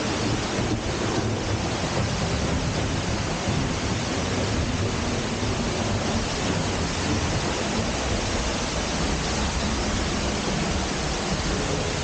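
Seljalandsfoss waterfall: a steady, loud rush of falling water and spray, even and unbroken.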